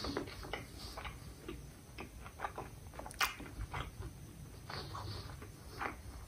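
A mouth chewing a mouthful of cheeseburger up close: soft, irregular wet smacks and clicks of the lips and teeth, with one sharper click about three seconds in.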